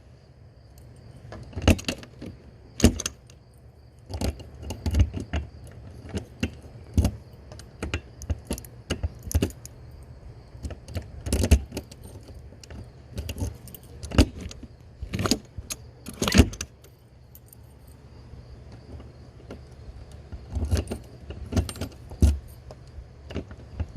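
A pop-up camper door latch and lock being worked by hand: a long run of sharp, irregular metallic clicks and rattles over a low steady hum.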